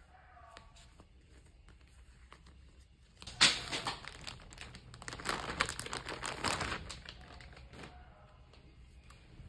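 A clear plastic garment bag crinkling as it is handled and pulled off clothing. There is a sharp crackle a little over three seconds in, then about four seconds of dense crinkling that settles into soft rustling near the end.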